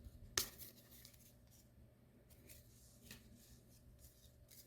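Faint rustling and soft clicks of baseball cards being flipped through by hand, with one sharper snap about half a second in.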